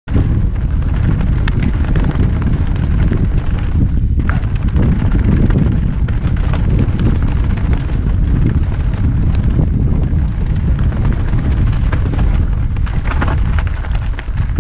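Mountain bike descending a loose, stony trail: heavy wind buffeting on the microphone over the tyres rolling on gravel, with scattered sharp clicks from stones and the bike.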